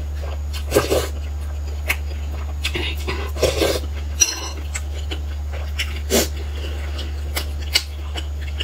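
Close-up eating sounds: slurps of soup from a metal spoon, the spoon clinking as it is set down in a glass bowl about four seconds in, then a bite into a pan-fried stuffed flatbread near the end, over a steady low hum.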